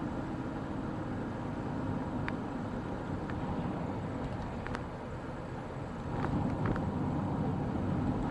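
Steady road and engine noise of a moving car heard from inside the cabin, a low rumble with a few faint ticks; it gets somewhat louder from about six seconds in.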